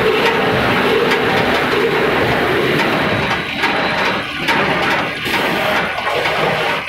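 Veneer peeling line machinery running: a loud, steady mechanical din with a hum, turning uneven with several brief dips about halfway through.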